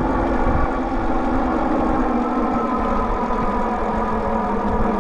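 The 1,000 W rear-hub motor of a Mokwheel Obsidian fat-tire e-bike whining steadily under full throttle on a steep climb, its pitch creeping slightly upward, over a low rumble of wind and tyres.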